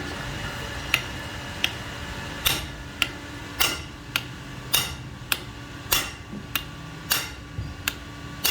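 Repeated sharp metallic knocks, like hammer blows on metal, about two a second, beginning about a second in.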